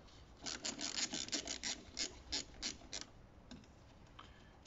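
Ratcheting screwdriver clicking about a dozen times as it backs out a Torx T20 screw from a fuel filter cover; the clicks stop about three seconds in.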